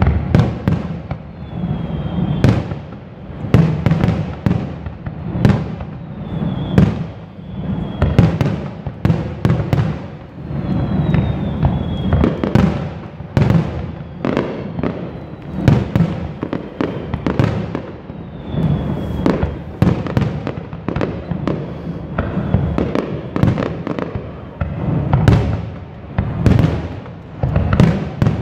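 Fireworks display: aerial shells bursting in a rapid, continuous barrage of bangs with rumbling echoes, and a few short falling whistles among them.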